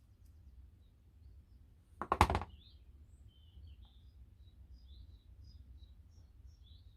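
Birds chirping faintly, short high chirps scattered through the second half, over a low steady hum. About two seconds in, one brief loud knock.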